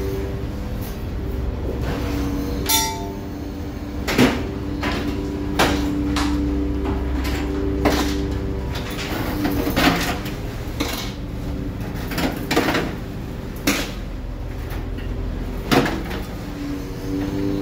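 A longline being hauled aboard a fishing boat over the rail, with sharp metallic clanks at irregular spacing of a second or two as hooks and gear come over. A steady hum and low rumble from the boat's machinery run underneath.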